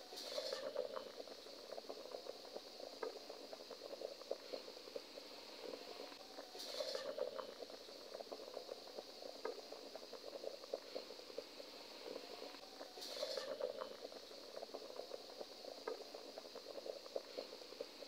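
Water at a rolling boil in a pot: a dense, continuous bubbling and popping, with a louder swell that recurs about every six seconds.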